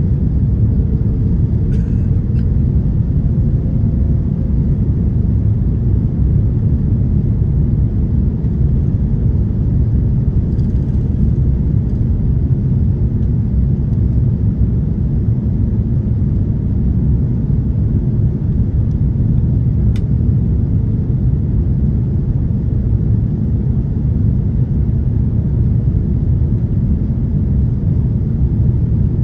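Steady low rumble inside the cabin of an Airbus A330-300 in flight: the engine and airflow noise of its Rolls-Royce Trent 700 engines heard through the fuselage.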